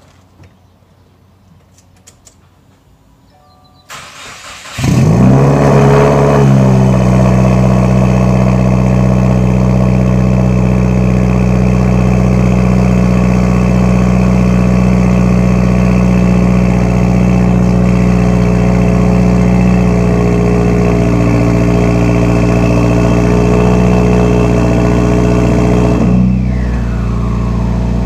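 2017 Subaru WRX's turbocharged flat-four, fitted with a Grimmspeed catted J-pipe and Carven cat-back exhaust, cold-started: it cranks about four seconds in, catches and flares up in pitch, then settles into a loud, steady fast idle. Near the end the idle drops a step and gets quieter, the cold-start high idle beginning to come down.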